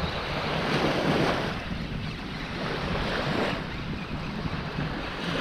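Small waves washing onto the beach, swelling twice, with wind rumbling on the microphone.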